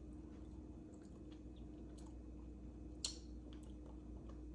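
Quiet room tone: a steady low hum with a few faint clicks, the plainest one about three seconds in.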